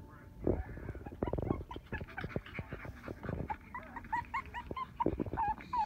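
Pekingese puppies play-fighting: many short, high yips and squeaks, thickest in the second half, over scuffling.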